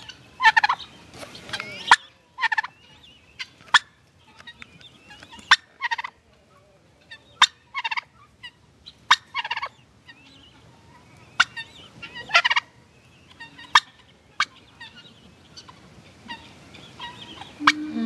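Domestic turkey calling: a string of short, sharp calls, irregularly spaced, roughly one every second. A longer, lower-pitched sound starts right at the end.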